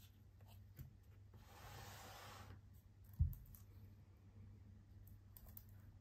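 Handling noise: a watch presentation box slid across a wooden tabletop for about a second, then set down with one dull thump, followed by a few faint clicks near the end.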